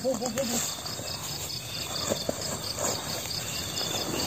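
Crickets chirping in a steady, rapid pulsing trill. A brief wavering human groan sounds during the first half second.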